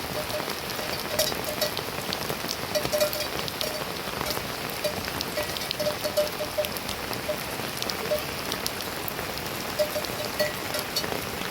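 Heavy rain falling: a steady hiss with many sharp individual drips and short, repeated pitched plinks throughout.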